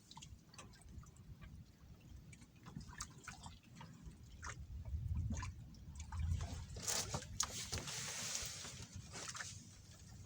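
Faint water sloshing and trickling, with scattered small clicks and drips. A louder watery hiss comes from about seven to nine and a half seconds in.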